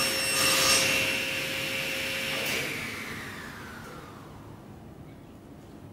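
Table saw running free just after a cut, then switched off about two and a half seconds in, its motor whine falling in pitch and fading as the blade spins down.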